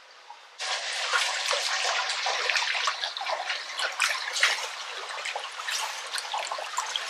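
Water splashing and sloshing as a person swims through a pool, starting suddenly about half a second in and going on in irregular splashes.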